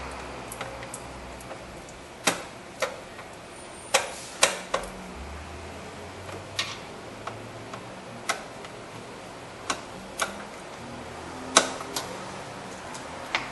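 Sharp, irregular clicks and knocks of a hand tool tightening the blower motor's mounting screws, spaced a second or so apart, the loudest about eleven and a half seconds in.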